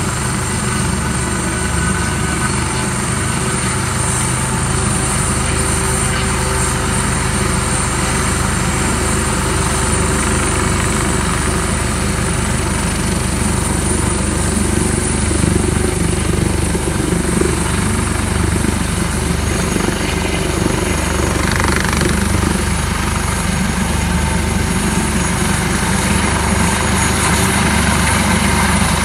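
Airbus AS365 Dauphin twin-turbine helicopter running with its main rotor turning, lifting off into a low hover in the second half: steady rotor and turbine noise with a high whine, growing slightly louder toward the end.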